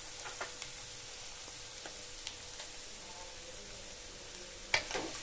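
Egg and shredded vegetables sizzling faintly in oil in a frying pan, with a few soft ticks. Near the end comes a louder, sudden sound as noodles are tipped from a bowl into the pan.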